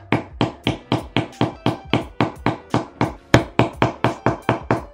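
Hammer striking a flat-pack furniture panel over and over, a steady run of sharp knocks at about four blows a second.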